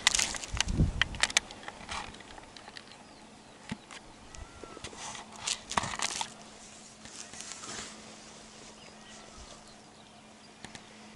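Handling noise: rustling, clicks and a low knock as gear is moved and a rifle is settled on a tree stump, mostly in the first second and a half and again around five to six seconds. Between these, faint short bird chirps.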